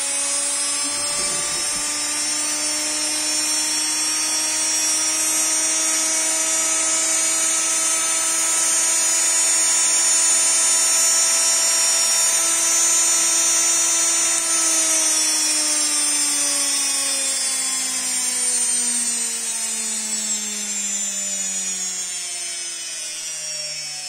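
Washing-machine brushed (universal) motor running on direct 220 V mains with no speed control, a high steady whine of several tones at full speed: a bench test showing the motor works. After about fifteen seconds it slows, the whine falling steadily in pitch and growing quieter.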